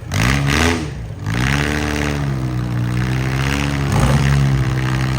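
Demolition derby car engine revving: it climbs in pitch right at the start, climbs again about a second and a half in, then holds at high revs.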